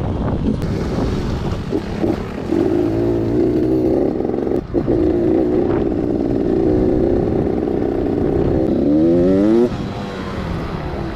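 Enduro motorcycle engine running under load over rough ground, with heavy rumble and wind noise. Near the end the engine revs up sharply, then the level drops as it eases off.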